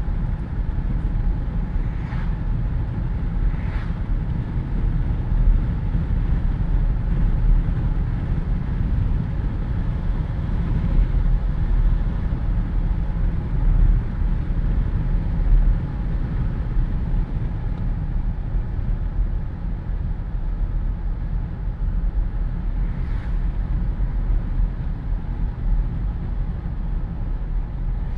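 Wind rushing through the open windows of a Jeep Wrangler on the move, over a steady low rumble of road and engine noise heard from inside the cabin. A few faint brief ticks stand out, twice near the start and once later.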